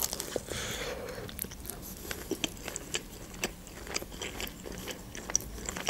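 A bite into a shawarma wrapped in flatbread, then close-miked chewing full of small, sharp wet clicks and crunches.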